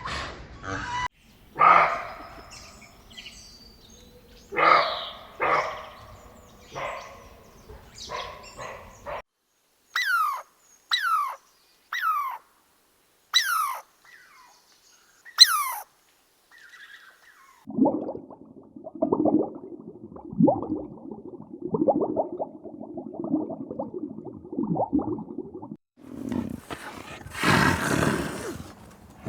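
Several different animal calls one after another: a run of five short, high calls that fall in pitch, about a second apart, midway through; then a low, fast, pulsing call; and a roar near the end.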